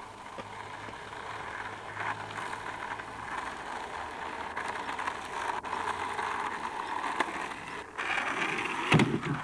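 Skateboard wheels rolling on rough asphalt, a steady rolling rush that grows louder as the board comes closer, with a loud knock of the board about nine seconds in.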